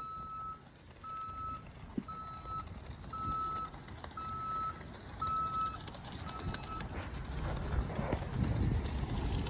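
Concrete mixer truck's reversing alarm beeping: seven even, single-pitched beeps about one a second that stop about seven seconds in, over the low rumble of the truck's engine.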